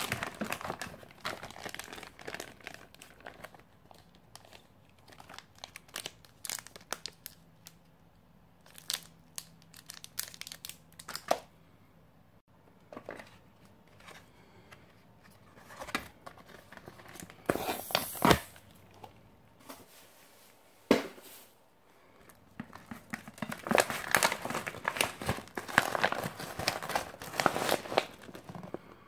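Plastic and foil ration packaging crinkling as it is handled, with scattered crackles. A short loud rip a little past the middle as the foil freeze-dried meal pouch is torn open, then dense crinkling near the end as the pouch is pulled open.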